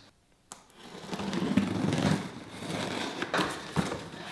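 Cardboard box and its paper packing being handled and opened: rustling and crinkling, with a few light knocks. It starts about half a second in, after a moment of silence.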